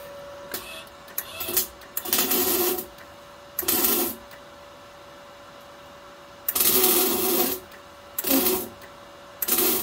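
MIG welding arc crackling in six short bursts of half a second to about a second each: stitch welds along a butt weld in thin steel from an IGBT MIG 180 inverter welder running 0.6 mm wire.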